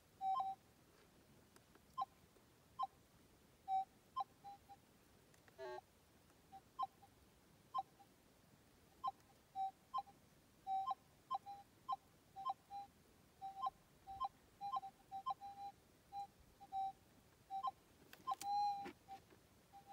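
Gold metal detector's audio giving a string of short, same-pitched beeps, irregularly about one or two a second, as the coil is swept over the test ground. Near the end there is a brief louder rustle.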